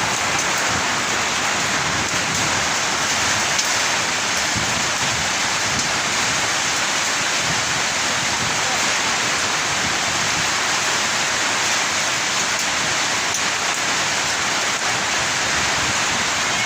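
Heavy rain pouring down steadily in a summer storm, a dense, even hiss with no letup.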